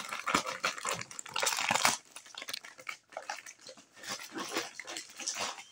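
Paper and plastic packaging crinkling and tearing as a wrapped doll is pulled out and unwrapped by hand. It is busiest in the first two seconds, then softer handling rustles.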